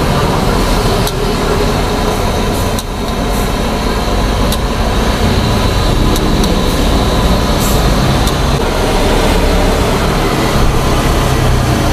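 Steady roar of a gas wok burner under a wok of sauce being stirred. A few times a metal spatula clicks and scrapes against the wok.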